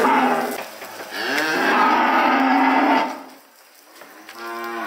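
Holstein dairy cows mooing: one long moo lasting about a second and a half, then a shorter, quieter moo near the end.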